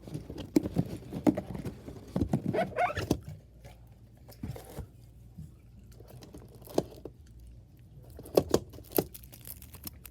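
Hands handling a trading-card box and its packaging: scattered light taps, scrapes and rustles, busiest in the first three seconds and again near the end.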